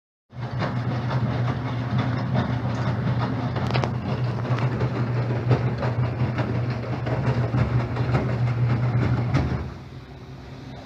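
Enxuta washing machine running: a steady motor hum with continual rattling and clatter. It starts suddenly and drops to a quieter hum about ten seconds in.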